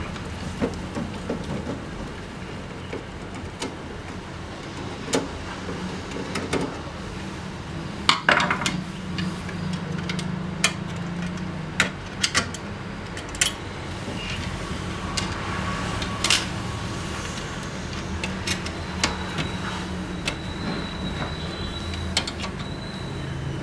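Irregular clicks and knocks of screws, a screwdriver and plastic printer parts being handled while a laser printer is taken apart, over a steady low background hum.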